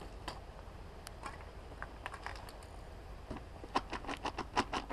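Light clicking and rattling of small hard objects being handled. A few scattered clicks at first, then a quick run of clicks from about three and a half seconds in.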